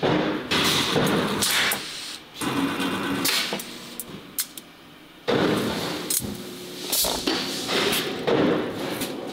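Metal-working factory noise: stainless steel parts clatter and scrape as they are handled, with a press working the strainer baskets. Irregular bursts of clatter and sharp clicks, with quieter gaps, run over a steady machine hum.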